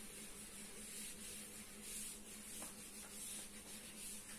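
Chalkboard duster wiping a blackboard in quick back-and-forth strokes: a faint swishing hiss that swells with each stroke, about two to three strokes a second.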